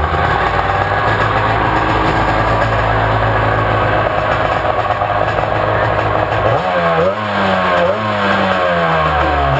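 A 1996 Sea-Doo GSX 800 two-stroke twin-cylinder engine is running steadily at idle. About two-thirds of the way through it is revved up twice, then drops back toward idle. The revving is a charging-system test: the battery voltage should climb to 13–14 V with the new rectifier.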